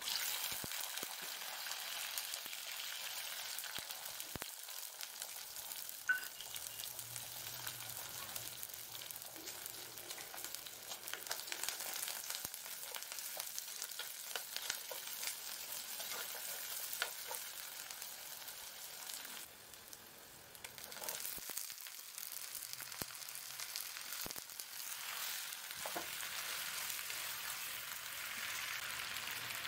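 Oil sizzling as garlic, shallots, curry leaves and brinjal pieces fry in a pot, with a slotted steel spatula clicking and scraping against the pot as it stirs. The sizzle drops away briefly about two-thirds of the way in.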